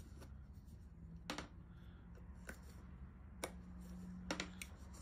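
A handful of light clicks and taps from hands handling a sneaker's glued midsole and outsole and the toothpicks propping them apart, over a steady low hum.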